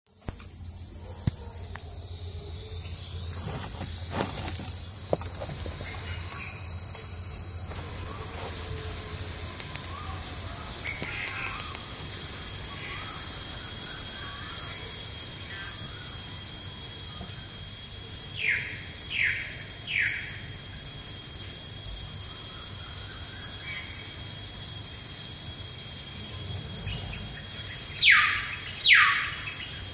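Steady high-pitched insect trill with a fine rapid pulse, growing louder over the first several seconds. A bird gives three quick downward-sweeping chirps about two-thirds of the way in and two more near the end.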